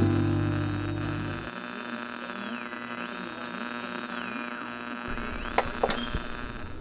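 The last guitar chord rings out and fades. Then an electronic hum carries a thin whining tone that slides down and back up several times, and a few sharp clicks come near the end.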